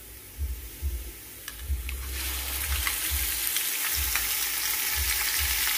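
Onions frying in hot oil, with a few clicks of a spoon against the pan; about two seconds in the sizzle jumps up and stays loud as ginger-garlic paste goes into the hot oil.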